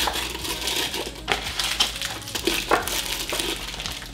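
Plastic-wrapped biscotti crinkling as they are taken from a cardboard box and dropped into a tall glass jar, with a couple of sharp knocks against the glass.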